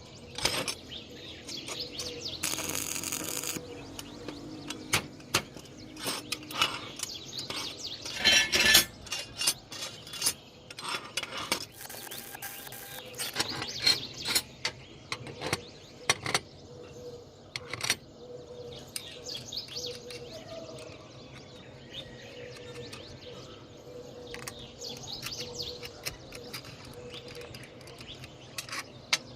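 Irregular metallic clinks and knocks of steel parts being handled and worked by hand, with a louder clatter about eight seconds in.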